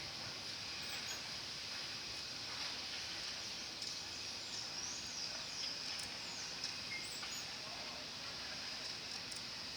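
Outdoor ambience: a steady high-pitched insect drone, with a few short bird chirps about four to six seconds in.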